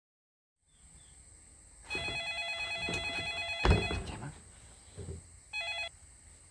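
Mobile phone ringtone: an electronic chord of steady tones that rings for about two seconds, then a short second ring near the end. A thump lands as the first ring ends.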